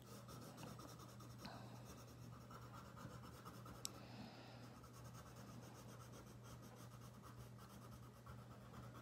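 Faint scratching of a colored pencil shading on paper in quick, repeated strokes, over a steady low hum. There is a small click about four seconds in.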